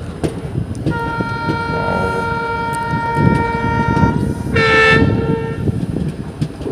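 Indian Railways train horn sounding: one long steady blast of about three seconds, then a shorter, louder blast of about a second, over a steady low rumble with scattered clicks.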